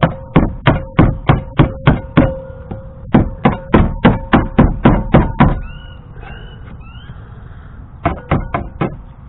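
Rapid sharp knocks, about three a second, in a run of about ten, a second run of about ten after a short pause, and four more near the end, over a steady hum. A few short rising squeaks come in the gap before the last run.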